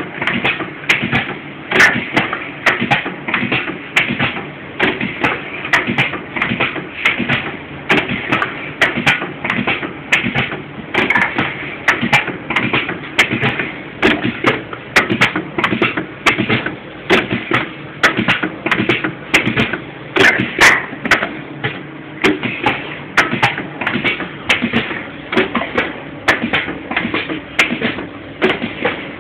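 Motorized pad printing machine running through its print cycles: a steady, repeating run of taps and clanks.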